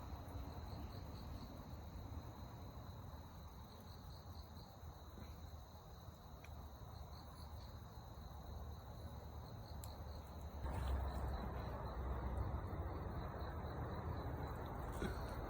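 Insects chirping steadily in a high, even trill, over a low background rumble that grows louder about two-thirds of the way through.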